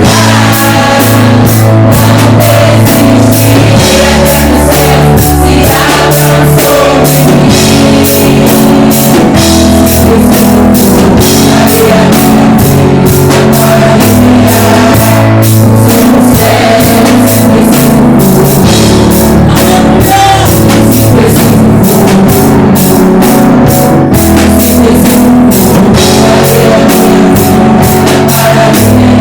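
Praise and worship band playing loudly: drum kit keeping a steady beat under bass and guitar, with the bass notes changing every couple of seconds.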